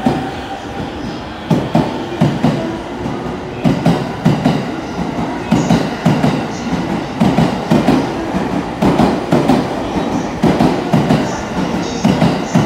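Electric commuter train rolling past along the platform. Its wheels clack over the rail joints in a steady double-knock rhythm, one pair a little under every second as each bogie crosses.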